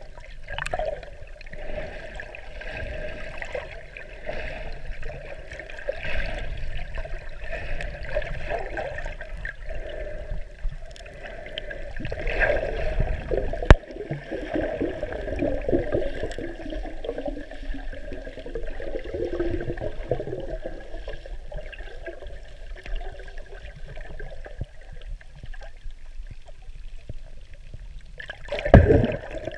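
Muffled underwater water noise picked up by a submerged camera: a continuous gurgling rumble that swells and fades, with a louder surge of water noise near the end.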